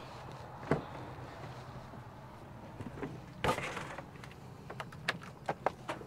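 Freightliner Cascadia semi-truck cab door: the latch clicks open, then comes a louder thump about three and a half seconds in. Near the end there is a run of light clicks and knocks as gear is handled inside the cab.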